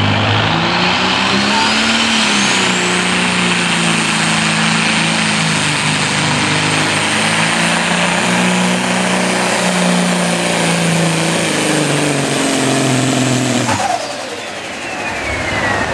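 Mack semi truck's diesel engine at full power pulling a sled, with a high whistle that climbs over the first few seconds and then holds. A little before the end the engine note drops off suddenly and the whistle winds down.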